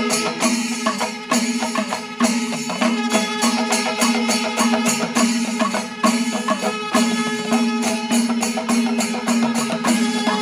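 Panchavadyam, the Kerala temple percussion ensemble: hand-struck drums and brass ilathalam cymbals playing a fast, dense, driving rhythm, with a held tone underneath.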